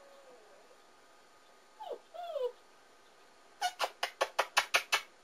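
German Shepherd puppy giving two short, wavering whimpers about two seconds in. Near the end come a quick run of about eight sharp clicks, several a second.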